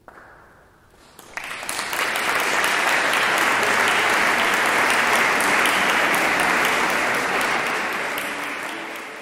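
Audience applauding: the clapping breaks out about a second in, quickly fills out to a steady, dense applause, and dies away near the end.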